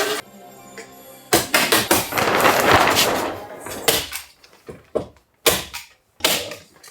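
Construction work: a few seconds of loud rushing noise, then a run of sharp, separate knocks and bangs.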